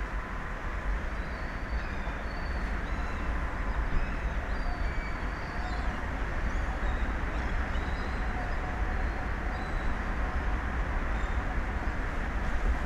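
Steady rushing wind and sea noise, heavy in the low end, with faint short high chirps scattered through it.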